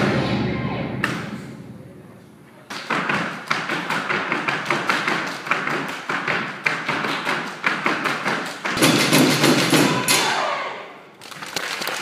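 Music fading out, then a rapid, irregular run of stamps and taps of flamenco footwork on a stage floor, several strokes a second, swelling near the end before dying away.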